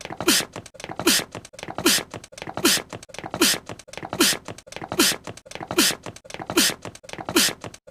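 A cute, voice-acted anime sneeze looped back to back, about ten times at even intervals of just under a second. Each sneeze is a brief falling squeak of voice followed by a sharp hiss.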